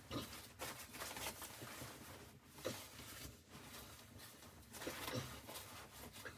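Faint rustling and handling noises, with a few light knocks and clicks scattered through.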